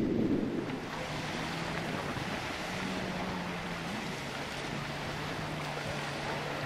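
Steady wind and lake-water noise with a low, steady hum underneath that steps down in pitch about four seconds in.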